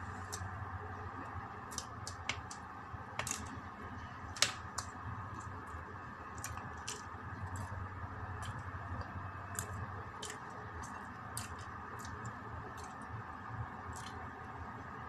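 Flaky egg tart pastry crust being broken apart with fingers and eaten: scattered small crackles and clicks, the sharpest about four and a half seconds in, over a steady background hum.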